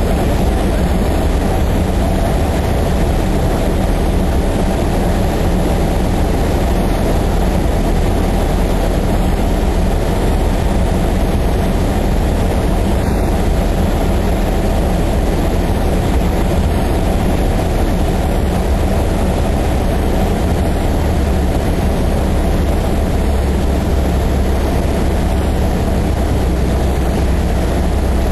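Steady, loud drone inside the cabin of a Cessna 152: its engine, propeller and rushing air, with the deepest rumble growing a little stronger near the end.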